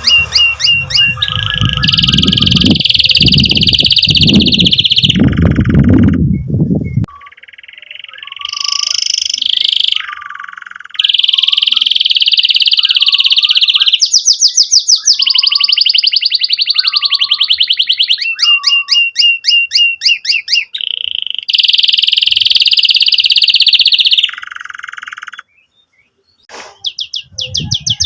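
Domestic canary singing vigorously in its full song. It switches between fast rolling trills, long buzzy held notes and rapid repeated chips, with a few short breaks.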